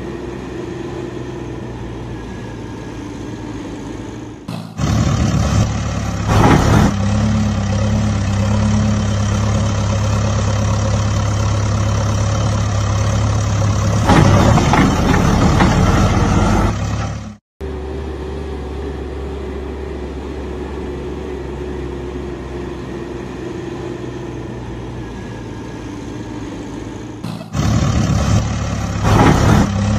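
Truck engine sound effect, laid over the toy scene. It idles steadily, then runs louder from about five seconds in. Past halfway it cuts out for an instant and the same sequence starts over, getting louder again near the end.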